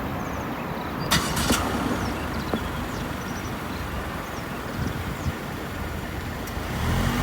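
Steady outdoor road-traffic noise. There are two sharp clicks about a second in, and a passing vehicle grows louder near the end.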